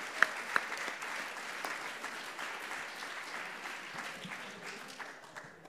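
Audience applauding, with a few sharp single claps standing out at first, then a dense patter that dies away toward the end.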